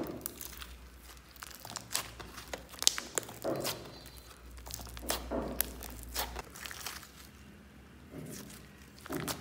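Hands kneading and stretching a sticky white slime as colour is worked into it, giving irregular sticky crackles and clicks with a few duller squelches as it is pressed and pulled apart.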